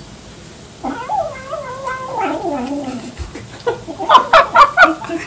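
Domestic cat with a fish in its mouth letting out a long, wavering moaning yowl that sinks in pitch, the sound a hungry cat makes over its food when it cannot meow while eating. It is followed by a quick run of loud, sharp chewing clicks as it bites into the fish.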